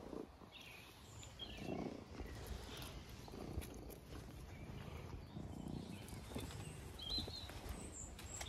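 Puppies play-fighting with a young dog: low growling grumbles in short bouts, with a few short high squeaks from a puppy, one about seven seconds in.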